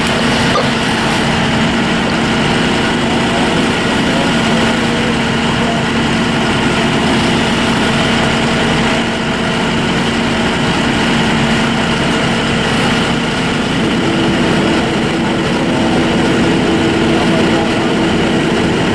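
Fire trucks' engines running steadily with a loud droning hum, which jumps to a higher pitch about fourteen seconds in.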